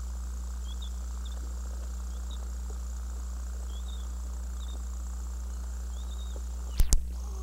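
Steady low hum on old camcorder tape audio, with faint, short, high chirps every second or so and two sharp clicks close together near the end.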